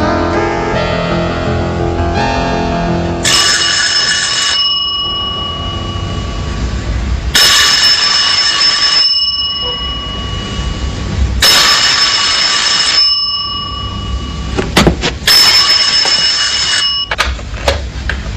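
Desk telephone bell ringing four times, each ring about one and a half seconds long and about four seconds apart, as a music cue fades at the start. A few sharp knocks near the end as the receiver is lifted.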